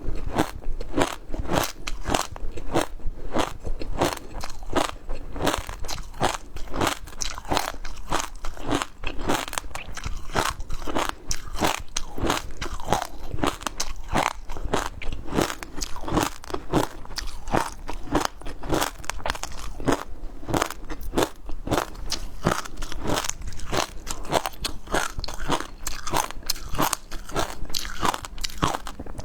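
Close-miked eating of seafood: a continuous run of sharp, crisp crunches from biting and chewing, several each second.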